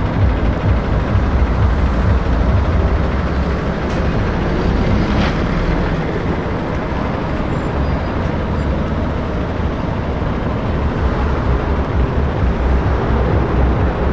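Diesel engine of a MAN tractor unit running with a steady low rumble as the truck pulls slowly past at low speed.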